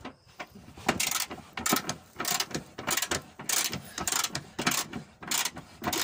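Hand ratchet wrench clicking as it works a nut on the spare-wheel carrier bracket of a VW T5 Transporter, in short runs of clicks about twice a second as the handle is swung back and forth.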